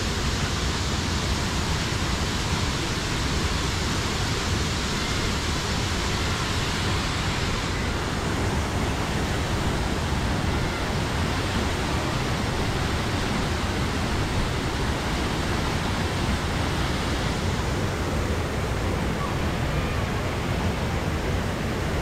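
Waterfall swollen with monsoon flow, pouring into a rocky plunge pool: a loud, steady rush of falling water.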